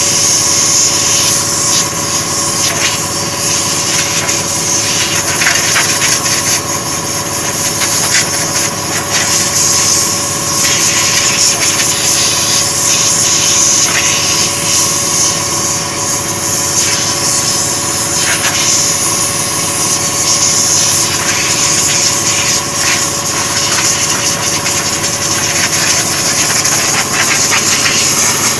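A machine motor running steadily, with a constant hum and a strong high hiss. Short rubbing and rustling sounds come and go over it as the wheel is handled.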